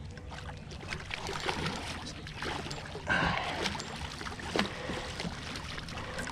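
A big redfish splashing and thrashing at the water's surface beside a boat as it is brought to the landing net, with a few short, sharper splashes, the loudest about three seconds in.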